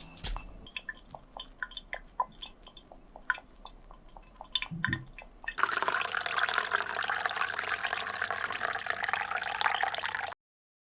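Liquid dripping into a container in quick, uneven plinks for about five seconds, then a steady rush of water that cuts off abruptly.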